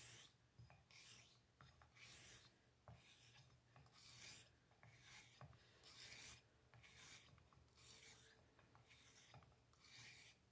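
Gold Dollar 66 straight razor being honed on a Shapton 1500-grit whetstone: a faint scraping hiss of steel on stone, repeated about once a second as the blade is stroked back and forth in X strokes to set the bevel.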